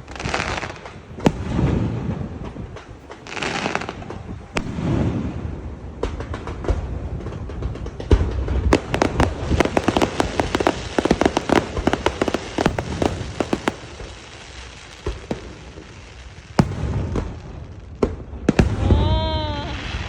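Fireworks going off: a string of bangs and sharp crackles, densest about halfway through, with a few hissing rushes in the first few seconds.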